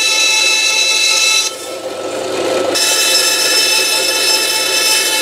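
Bandsaw running and cutting a curve in a thin wooden deck sheet: a steady whine with a bright cutting hiss. The hiss drops out for about a second midway, then comes back as the cut goes on.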